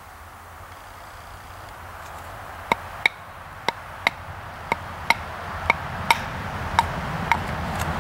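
A fixed-blade knife being struck on its spine with a wooden baton to split kindling on a stump: about ten sharp strikes starting a few seconds in, roughly two a second, each with a short metallic ring from the blade. A rushing noise grows steadily louder underneath.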